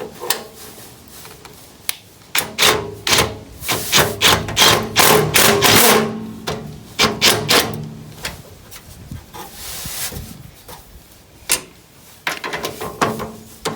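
Irregular knocking and clattering of hand-tool work on a lawnmower, a part being knocked into place, densest between about two and seven seconds in, with a few more knocks near the end.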